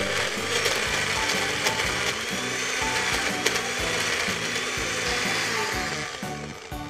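Countertop blender running on high, crushing ice and puréeing strawberries into a frozen daiquiri, a steady whir that dies away about six seconds in.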